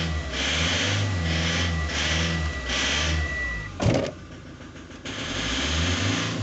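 Ford Transit 2.0 engine revved in short repeated blips, about one a second, with a steady high whine under it, while it makes a metallic knock the owner cannot account for. A single sharp thump about four seconds in, after which the engine drops back, then picks up again a second later.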